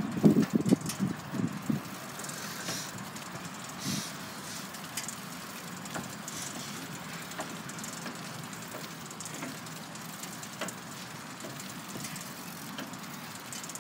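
Steady rolling and rattling noise of a six-seat pedal surrey moving along a paved path, with scattered light clicks. A few heavy low thumps come in the first two seconds.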